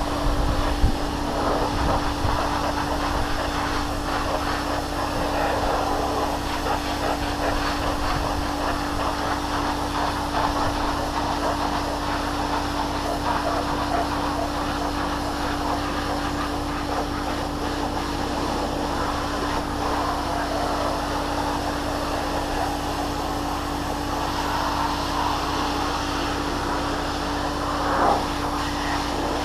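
Nilfisk steam cleaner running with a steady motor hum, while the noise of the spray rises and falls over it. A brief louder sound comes near the end.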